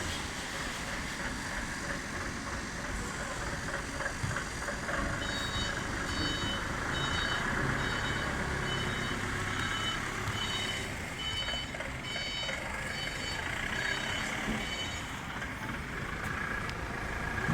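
Repeated electronic beeping, about two short high beeps a second, lasting about ten seconds in the middle, over a steady background rumble.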